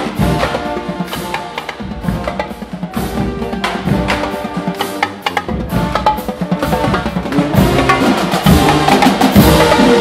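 Loud drum-driven music: rapid drum hits with sharp stick clicks and pitched notes underneath, building in loudness toward the end.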